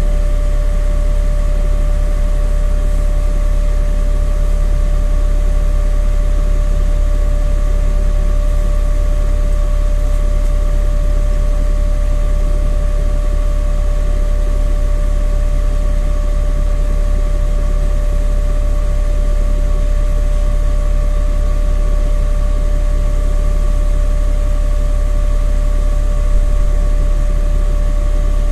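Steady low rumble of a NefAZ city bus heard from inside the cabin, with a constant whine running over it.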